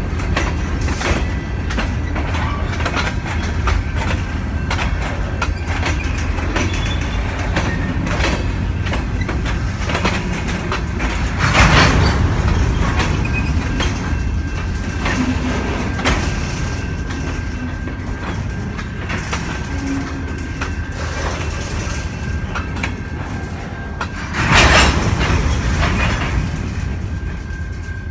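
Freight train rolling past: a steady low rumble of cars with wheels clicking over rail joints, and two brief louder surges, one about twelve seconds in and one near the end.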